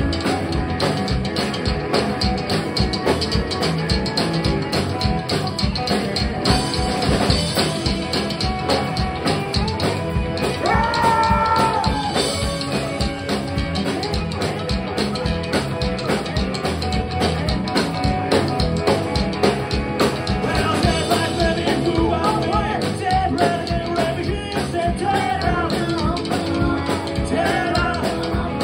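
Live rockabilly band playing a fast rock and roll number on upright bass, hollow-body electric guitars and drum kit, with lead vocals over the band.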